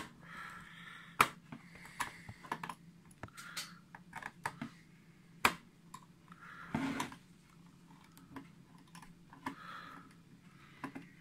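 Precision screwdriver unscrewing a small screw from the plastic battery-compartment cover of a Silvercrest kitchen scale: irregular small clicks and light scrapes of metal on the screw and plastic. The sharpest clicks come right at the start, about a second in, and at about five and a half seconds.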